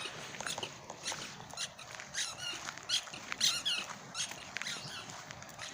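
Squeaky toy ball being squeezed over and over: short, high squeaks, roughly two a second at irregular intervals, some of them gliding in pitch.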